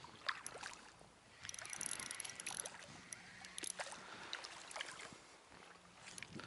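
Water splashing and sloshing, with scattered small splashes and a burst of heavier splashing about one and a half seconds in, as a hooked fish fights at the surface and is brought in.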